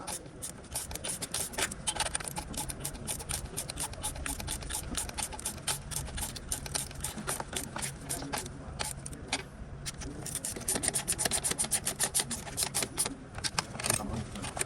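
Mechanical repair work on a car: rapid, irregular sharp clicking throughout, over a low steady hum that comes in about five seconds in.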